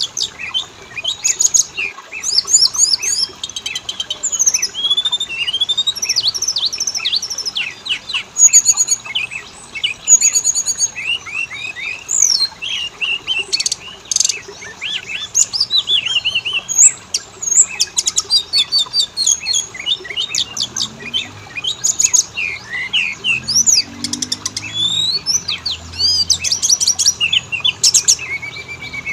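Oriental magpie-robin (kacer) singing a rapid, unbroken song of varied whistles, chirps and quick rising and falling slurs, broken by short buzzy rattles.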